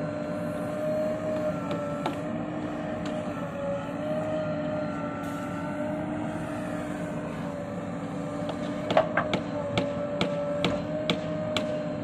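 A JCB 3DX backhoe loader's diesel engine runs steadily with a whining tone as the backhoe arm works. About three quarters of the way through comes a quick series of sharp clanks from the backhoe bucket and arm as it digs.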